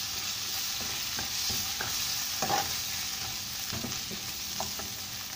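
Chopped onion and ginger-garlic paste sizzling in hot oil in a non-stick wok, with a spoon scraping and knocking against the pan as it is stirred; the loudest scrape comes about two and a half seconds in.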